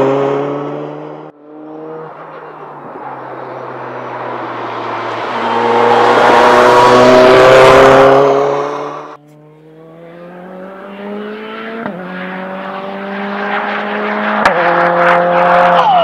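Hyundai RM19 racing prototype's mid-mounted turbocharged four-cylinder engine under hard acceleration on track. The car comes by loud with its note rising. After a sudden cut, another run builds steadily in pitch and loudness, with a couple of brief jumps in pitch.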